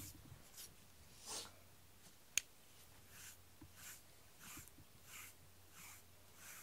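Faint scratchy strokes of a deshedding tool drawn through a cat's fur, repeating at a steady rhythm of about one stroke every two-thirds of a second, with a single sharp click about two and a half seconds in.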